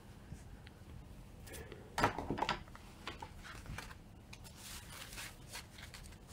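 Trading cards being handled and slid over a playmat: a quick cluster of rustles and scrapes about two seconds in, then a few fainter rustles.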